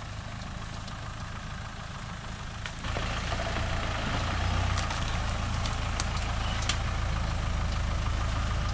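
A 4x4's engine pulling slowly through bush. It gets louder and heavier about three seconds in as the vehicle comes closer, and a few sharp snaps of twigs and branches sound against the vehicle.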